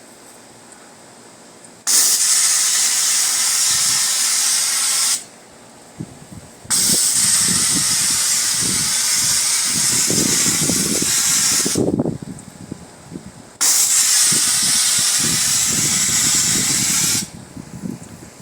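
Pressure-washer wand spraying in three long bursts of hissing water, the trigger pulled and released between them.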